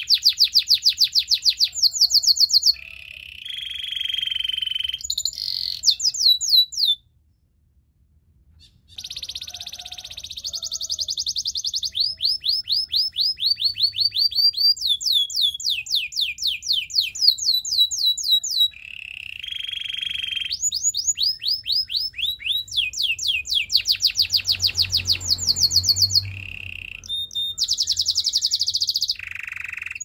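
White domestic canary singing: fast trills of rapidly repeated falling whistled notes, about ten a second, in phrases that change pitch and speed. There is a short break in the song about seven seconds in.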